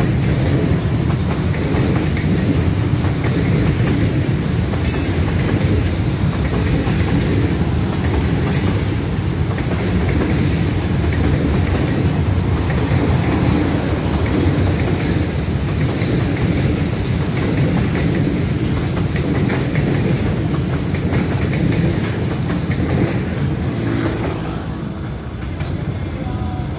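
Freight train of container-laden flatcars rolling past close by: a steady rumble of steel wheels on the rails with clickety-clack over the rail joints, dropping off near the end as the last wagons pass.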